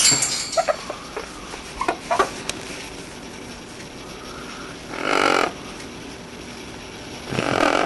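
Two short, harsh animal calls, one about five seconds in and another near the end, with faint clicks and rustling in the first couple of seconds.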